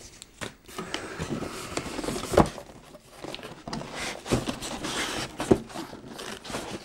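Cardboard packaging and paper being handled: rustling and sliding cardboard with scattered light knocks, the two loudest about two and a half and five and a half seconds in.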